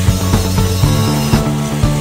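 Background music with a steady beat and sustained notes; the bass note changes a little under a second in.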